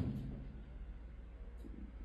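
Faint room tone with a steady low hum, and a brief soft low sound right at the start.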